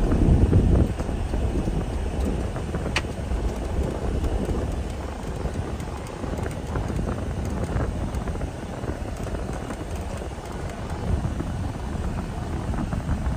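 Low, steady rumble heard inside the cab of a Ford F-150 pickup rolling slowly over a sandy dirt track, louder for the first second. A single sharp tick about three seconds in.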